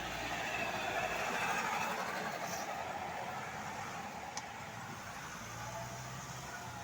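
A road vehicle passing by: engine and tyre noise swells to a peak about a second or two in, then slowly fades.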